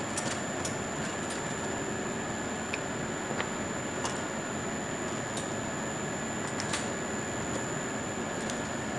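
Steady hum of room equipment or ventilation with a faint high-pitched electronic whine, and light clicks and taps at irregular intervals, about a dozen, from small tools or parts being handled.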